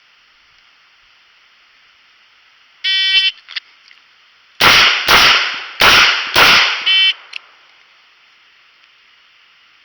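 A shot timer beeps, then a Taurus 856 snub-nosed revolver fires four .38 Special shots in quick succession, about half a second apart. A second timer beep about four seconds after the first marks the end of the par time.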